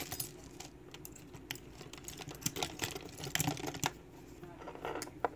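Irregular small metallic clicks and taps as a small 5-pin lock cylinder is handled and set down on a wooden tray while it is being taken apart. The clicks come thickest in the middle stretch, with one sharper click near the end.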